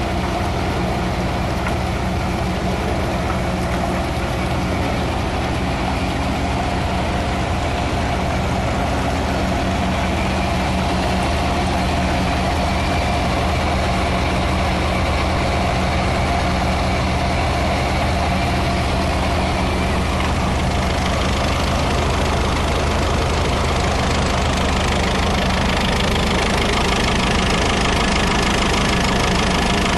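Vintage Ferguson tractor engine running steadily at a constant speed.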